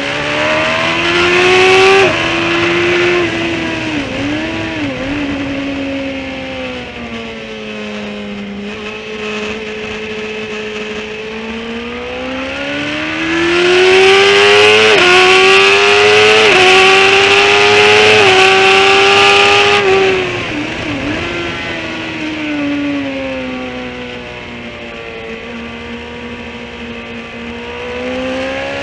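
Motorcycle engine at full track pace, heard from the bike itself: revs rise and fall with the corners, climbing with quick drops in pitch at upshifts. Loud wind rush joins in along the straight, then the revs fall away under braking.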